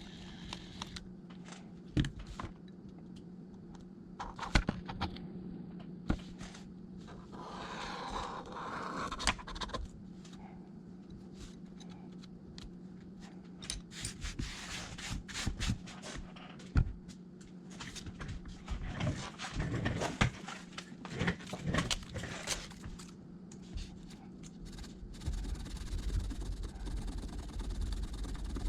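A hand tool scraping and tapping at an iPad's frame as it is cleaned, in irregular short scrapes and clicks, busiest around the middle of the stretch, over a steady low hum.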